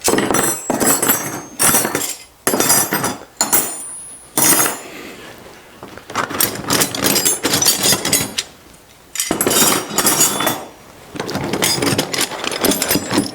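A set of metal spanners clinking and rattling against one another as they are handled and laid out, in several clattering spells with short pauses between.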